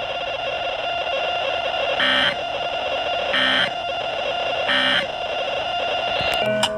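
Three short Emergency Alert System end-of-message data bursts (SAME digital tones), evenly spaced about a second and a half apart, over a steady electronic buzz. A few clicks come near the end.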